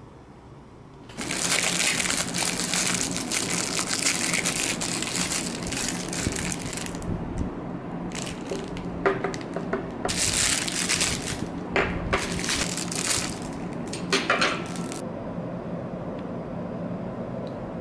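Clear plastic packaging crinkling and rustling as it is handled and pulled off small items, first in one long stretch, then in shorter bursts with pauses, with a few sharp clicks of hard ceramic and metal pieces being handled.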